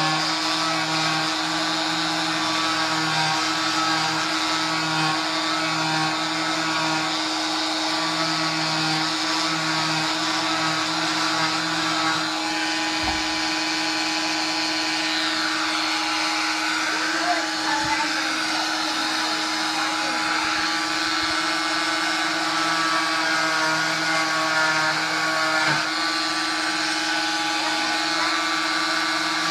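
Electric cast saw with a dust-extraction vacuum, running steadily while it cuts off a leg cast; a constant whine with a lower hum that keeps dropping in and out.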